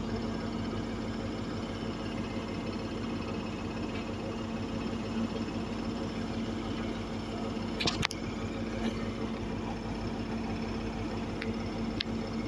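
HST power car's diesel engine idling with a steady drone while the train stands. A single sharp click about eight seconds in.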